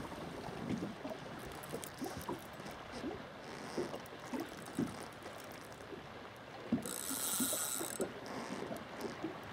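Small waves lapping against the side of a boat: irregular soft slaps and splashes, with a brief hiss about seven seconds in.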